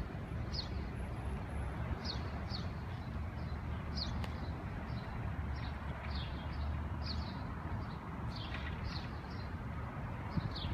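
A small bird chirping repeatedly, short high notes that fall in pitch, about one or two a second, over a steady low rumble.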